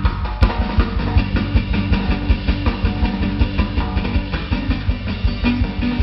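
Cretan laouto (lute) and drum kit playing together live: quick plucked lute lines over busy, steady drumming with frequent kick-drum strokes.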